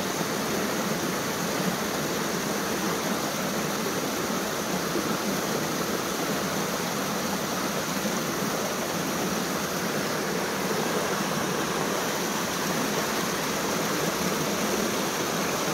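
Steady sound of flowing river water, an even hiss that stays constant throughout.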